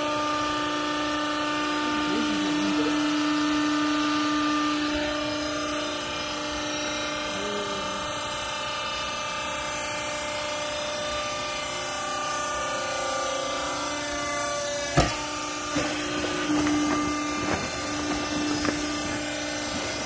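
Hydraulic power unit of a vertical clothes baler running with a steady hum as the press works. A sharp knock about three quarters of the way in, followed by a few lighter knocks.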